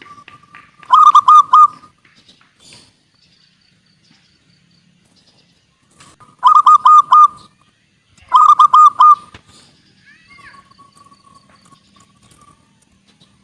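Zebra dove (perkutut) cooing close by: three short phrases of rapid pulsed notes, about a second in, near the middle and again two seconds later. Faint chirps and trills of other birds come in between.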